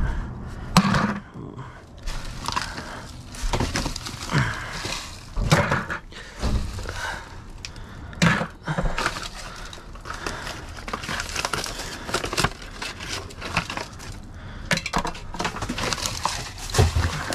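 Used oil filters being rummaged through and tossed into a bucket: irregular metal clanks, knocks and clatter, a few seconds apart.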